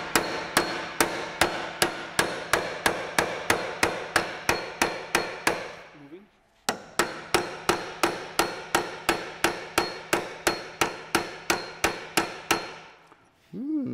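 Repeated hammer blows on the front shock absorber top mount of a Porsche Boxster, sharp metal-on-metal strikes at about two a second. The blows pause briefly about six seconds in, then stop near the end. The top mount will not come free: it is corroded and seized to the shock absorber shaft.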